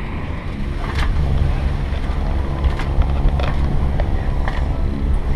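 Boat engine running with a steady low hum that grows stronger about a second in, with wind noise on the microphone and a few light knocks.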